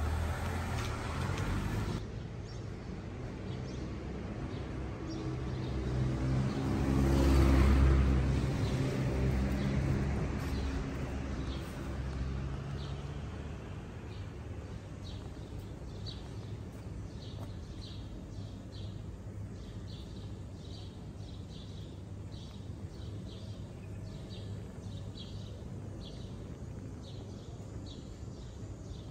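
Outdoor street ambience: a passing vehicle's low rumble builds to a peak about eight seconds in and fades away, then small birds chirp over and over in short calls.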